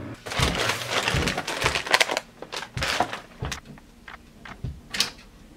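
Handling noise: a dense run of rustling and clattering for about two seconds, then scattered clicks and knocks.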